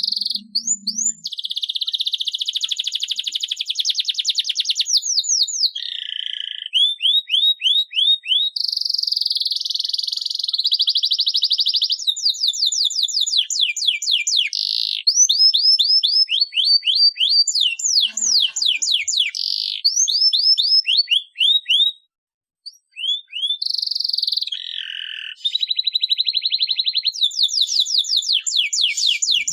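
Canary singing a long, continuous song of rapid rolling trills mixed with quick sweeping notes, with one brief pause about two-thirds of the way through.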